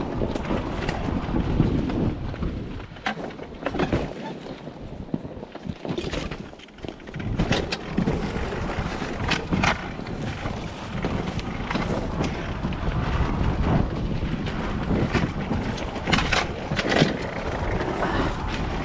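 Wind rumbling on the microphone, with scattered knocks and rattles through it and a quieter spell about four to seven seconds in.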